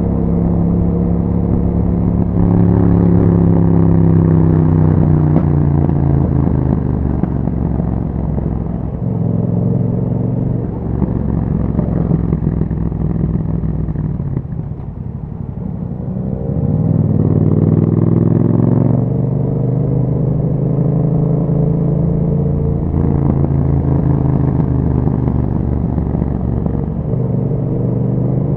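A Yamaha MT-07's parallel-twin engine running through an Akrapovic exhaust while riding. The revs rise and fall through gear changes, easing off to a low point about halfway through before pulling up again.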